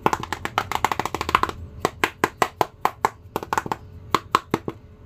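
Fingers tapping on a hollow hard-plastic face mask: a quick run of taps for the first second and a half, then single, unevenly spaced taps with a short hollow ring.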